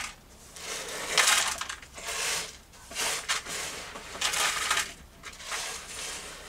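A hand brush sweeps shattered glass across a countertop into a plastic dustpan. There are about six strokes, roughly one a second, and the glass bits scrape and clink.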